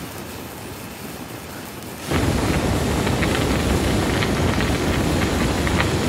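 A steady hiss, then about two seconds in the sudden louder rush of flames burning, with many small crackles.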